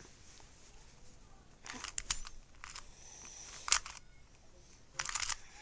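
Plastic Rubik's Cube being twisted by hand: short bursts of rapid clicking and scraping as the layers turn, in several separate turns, the last and longest about five seconds in.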